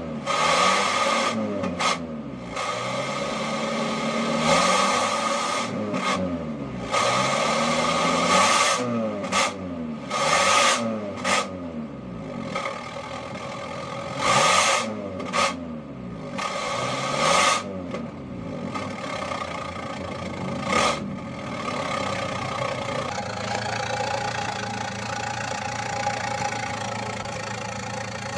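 Toyota Kijang engine revved repeatedly through a stock exhaust fitted only with a bolt-on stainless dual-tip HKS-style exhaust tip: eight or nine blips of the throttle, each rising and falling back, then settling to a steady idle for the last several seconds.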